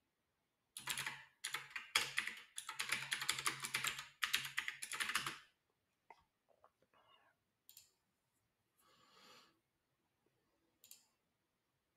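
Rapid typing on a computer keyboard, starting about a second in and stopping after about four and a half seconds, followed by a few faint clicks.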